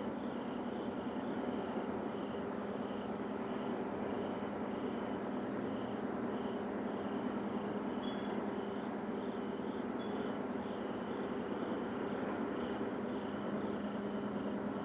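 Steady, loud droning rumble from the sky of unknown origin, unbroken and without any pattern, with a constant low hum in it. A faint high chirp repeats about twice a second over it.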